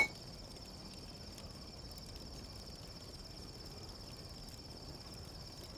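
Crickets chirping in a faint, steady, unbroken high trill.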